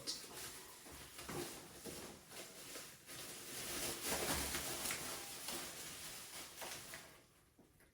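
Packaging rustling and light clicks of small parts being handled as a box of kit parts is unpacked, with a fuller rustle about halfway through.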